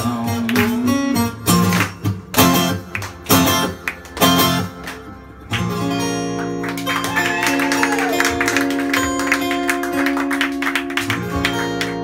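Two acoustic guitars strumming a song's closing: a few sharp, separate chord hits, a brief drop, then from about halfway a long chord left ringing to end the song.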